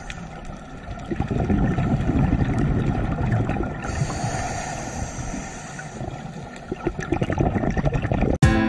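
Underwater rumble and gurgling of water picked up by an underwater camera, a dense low noise with scattered clicks. Music starts just before the end.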